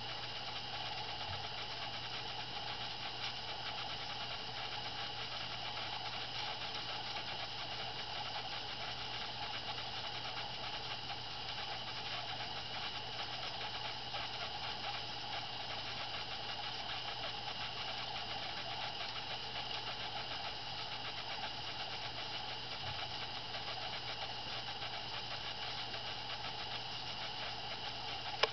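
A steady, unchanging mechanical hum with hiss, and a single brief knock near the end.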